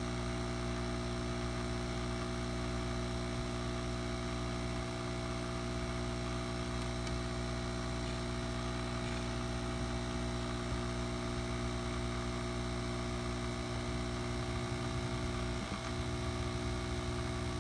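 A small fan motor running steadily at a constant pitch, a continuous hum.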